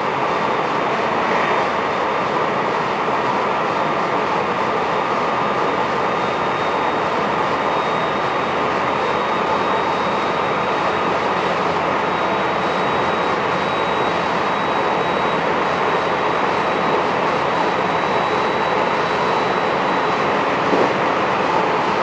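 Inside a JR West 223 series 1000 subseries electric train (motor car KuMoHa 223-1008) running steadily: an even roar of wheels on rail and running gear, with a thin high tone coming in about halfway through.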